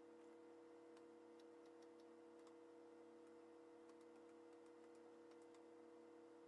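Near silence: a faint steady hum, with scattered faint ticks and clicks from hands handling the backs of the instrument-cluster gauges and their wiring.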